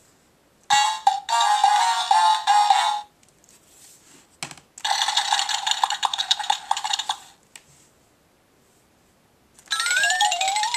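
Electronic sound clips from a Play-a-Sound children's book's small built-in speaker, set off by button presses. There are three in turn: a short tune about a second in, a second burst of music about halfway through, and near the end a cartoon sound effect whose tones slide up and down, then rise.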